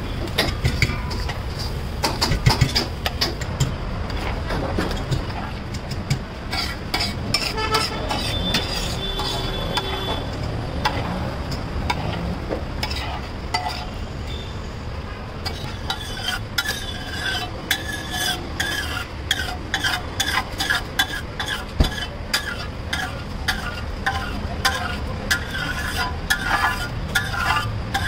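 Steel ladle scraping and stirring thick pav bhaji across a large hot tawa, with sizzling. The strokes are quick and repeated, coming faster and more rhythmically from about halfway through, over a steady low rumble.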